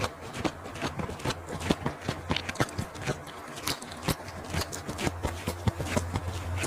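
Close-miked chewing of barbecue sausage and lettuce: irregular wet mouth clicks, smacks and crunches, several a second. A low steady hum runs underneath.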